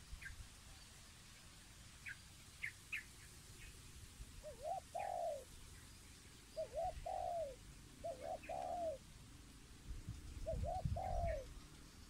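A dove cooing in four phrases a second or two apart, each of two short notes and then a longer coo. Faint short chirps of small birds come in between, and there is a low rumble, loudest near the end.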